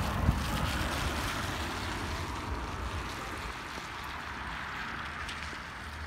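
A car drives past on a wet road, its tyres hissing, loudest just at the start and fading off. Behind it is a steady hiss of falling rain.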